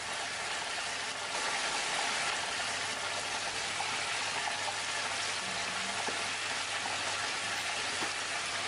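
Raw chicken pieces deep-frying in a pan of hot oil: a steady, dense sizzle.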